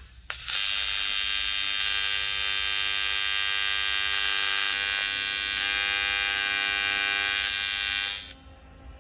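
AC TIG welding arc on aluminum, buzzing steadily with a hiss while a fillet weld is run around the tube's base. The arc strikes just after the start, its buzz shifts slightly in pitch about halfway through, and it cuts off near the end.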